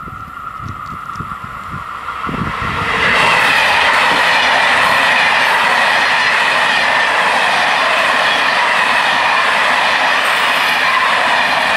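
A Belgian InterCity train of M4 passenger coaches passing close at speed over a level crossing: its wheels on the rails come in suddenly and loud about three seconds in, then hold steady. Before that, the crossing's warning bell rings as a steady tone.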